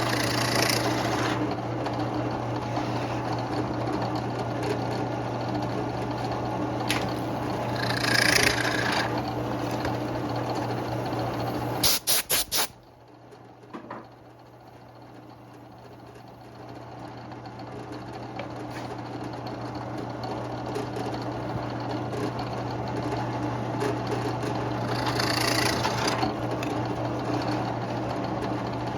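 Craftsman 15-inch drill press motor running with a steady hum while the bit drills holes. A short cutting hiss comes about eight seconds in and again near the end. Midway there is a brief clatter, after which the sound drops quieter and slowly builds back up.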